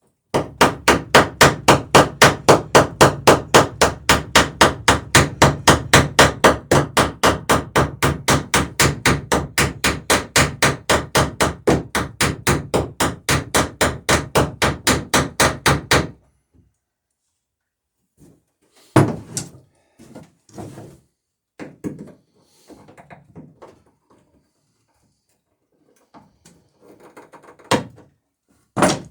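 Hammer striking a copper boat rivet in fast, even blows, about four a second, for some fifteen seconds: peening the rivet end over its burr to fasten the dory's planks. It stops abruptly, and a few separate knocks follow.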